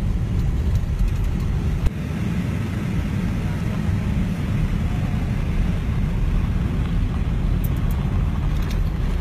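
Steady low rumble of a vehicle driving on a dirt road, heard from inside the cabin, with one short knock about two seconds in.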